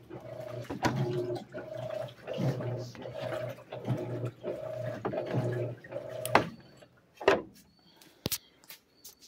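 Electrolux LAC 12 top-loading washing machine agitating: the motor hums in short pulses, a little more than one a second, as the agitator swings back and forth through water and clothes, then stops about six seconds in with a few clicks and knocks. This is its normal agitation on the heavy-soiled programme, which skips the extra-strong first agitation.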